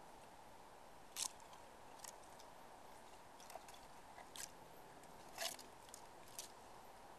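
Faint, scattered sharp clicks and scratches from a flying squirrel clambering head-first down a tree trunk, about half a dozen over a steady background hiss.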